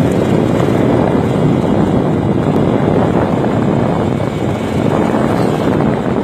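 Steady loud rushing noise of riding a motorcycle along a wet street, with wind buffeting the microphone and road noise from the moving bike.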